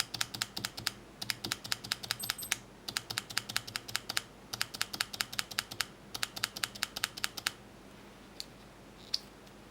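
Spacebar on a stock, unmodified Cherry MX Clear switch, pressed and sharply released over and over, clacking on each return stroke. The clacks come in five quick runs of rapid strokes with short pauses between them, followed by two lone clicks near the end.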